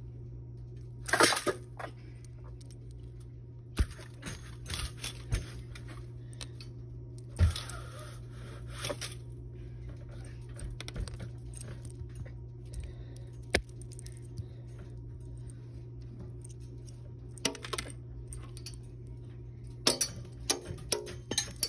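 Horizontal window blind being handled: irregular clicks and light rattles of the slats and cord, in short clusters about a second in, around seven to nine seconds, and near the end, over a steady low hum.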